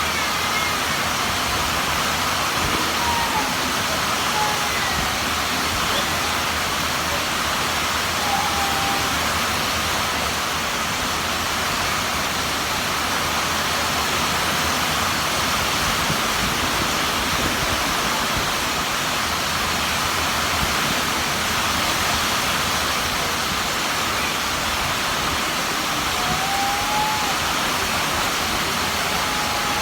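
Heavy rain pouring down steadily, with a few faint short calls heard over it near the start and again near the end.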